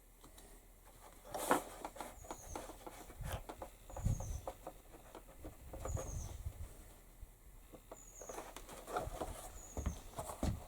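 Handling noises from leatherwork at a bench: scattered taps, knocks and rustles of leather pieces and tools being moved and positioned, the sharpest about a second and a half in. A faint short high chirp, falling in pitch, repeats every second and a half or so throughout.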